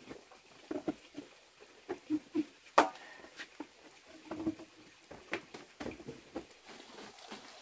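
Scattered light knocks, clicks and scuffs of objects being handled, with one sharp knock about three seconds in.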